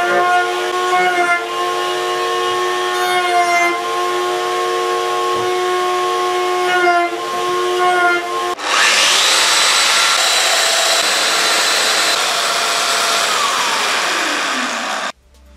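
A table saw runs with a steady motor whine while a board is pushed through. A Festool Domino joiner with its dust extractor then spins up with a quick rising whine, runs with a loud hiss, and winds down with a falling whine near the end.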